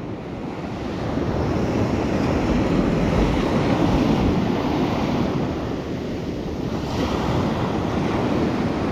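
Surf washing onto a sandy beach, with wind buffeting the microphone; the wash swells and eases over several seconds.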